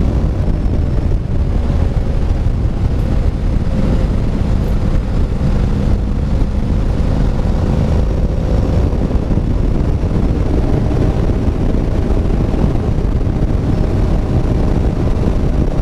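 Wind rushing over the microphone at road speed, with the Honda NC750X's parallel-twin engine running steadily underneath as the motorcycle cruises.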